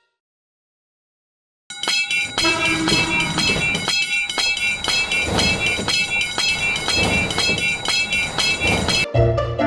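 After about two seconds of silence, a railroad crossing alarm rings in a steady rhythm of about two strokes a second over the rumble of a passing train, stopping suddenly near the end.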